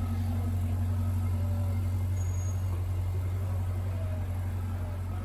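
Twin-turbo V8 of a Ferrari 488 GTB-based 7X Vision GTO idling steadily with a low, even hum.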